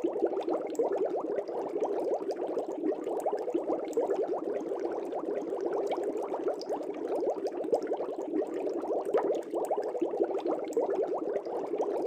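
Air bubbles streaming up through aquarium water: a dense, steady bubbling of many small bubbles, with no breaks.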